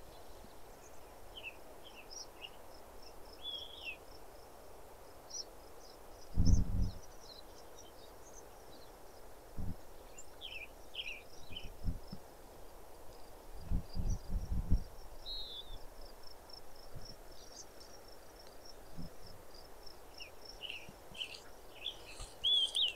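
Small birds chirping in short clusters over a high, thin, pulsing trill. A few brief low rumbles of wind buffet the microphone, the strongest about a quarter and about two-thirds of the way through.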